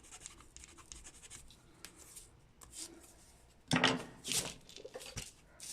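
Small plastic figure parts being scratched and rubbed by hand as excess material is picked and cleaned off, in light scattered scrapes and clicks. A louder handling bump and rustle comes a little past halfway.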